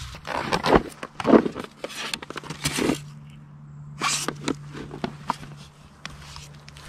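Irregular scrapes and rustles from handling a box on dry pine-needle litter, loudest about a second in. Softer footsteps on the needles follow near the end.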